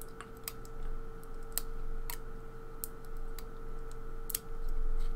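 Small metal clicks and taps from a pin-tumbler lock cylinder being handled as a shim is worked into it ahead of gutting, about ten sharp clicks at irregular intervals over a faint steady hum.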